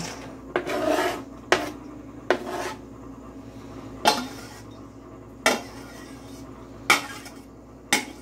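A kitchen utensil knocking and clinking against a dish about seven times at uneven intervals, some strikes ringing briefly, with a little scraping between them, as meat is worked into the bowl.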